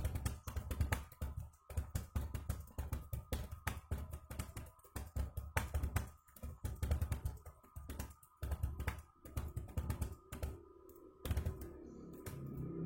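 Fast touch-typing on a computer keyboard: a dense, uneven run of keystrokes at speed during a typing test, stopping about eleven seconds in.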